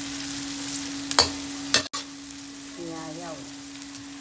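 Food sizzling as it is stir-fried in a wok, with a steady hum under it. Two sharp clinks of the spatula against the wok come a little after one second in and again just before two seconds.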